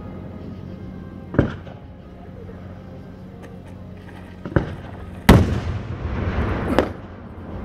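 Aerial fireworks going off: four sharp bangs a second or more apart, the loudest about five seconds in, followed by a hiss lasting about a second and a half.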